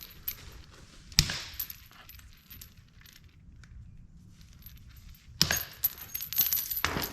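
Bolt cutters snap through a steel chain link about a second in. Near the end the chain clinks and rattles as it is handled.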